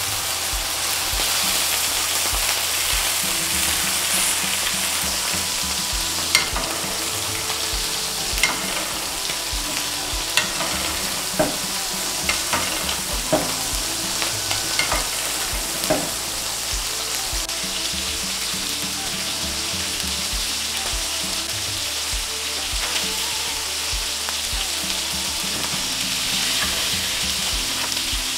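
Steaks sizzling as they fry in butter and oil on a ridged grill pan and griddle. A scatter of sharp clicks comes through the middle as a spoon knocks against the pan, spooning the melted butter over the steak.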